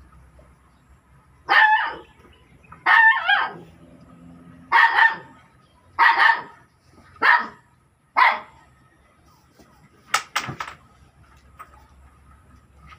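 A dog barking, six loud barks about a second or so apart, followed about ten seconds in by a quick cluster of short, sharp sounds.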